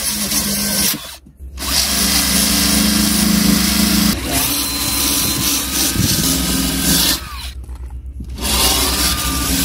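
Cordless drill spinning a wire brush against a painted steel van body panel, scouring off paint and rust. It grinds steadily, cutting out briefly twice as the brush is lifted and then pressed back on.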